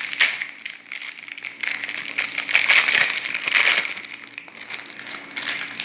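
Plastic packaging of a fidget toy crinkling and rustling as it is opened by hand, loudest about halfway through.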